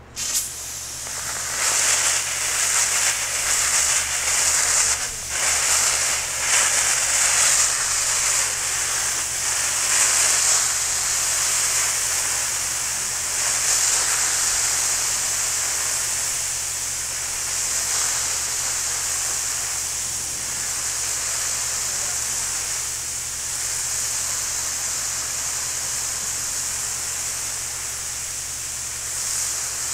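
Pressurised stream of FEM-12 SC extinguishing agent spraying onto burning titanium powder, a steady hiss of spray and steam that starts suddenly. It is louder and uneven for the first ten seconds or so, then steadier as the metal fire is put out.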